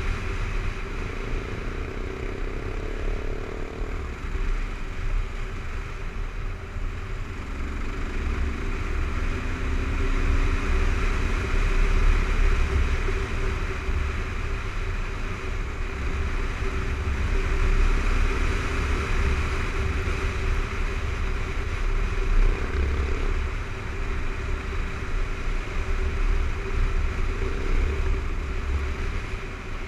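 Kawasaki KLR 650's single-cylinder four-stroke engine running at a steady cruise on a gravel road, heard from the rider's seat with a heavy, uneven low rumble of wind on the microphone. It swells slightly a few times as the throttle or speed changes.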